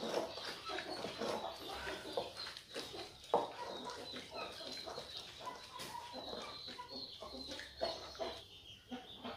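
Irregular rubbing and scraping of a hand working an eel against a ceramic bowl, with a sharp knock about a third of the way in. Animal calls sound in the background.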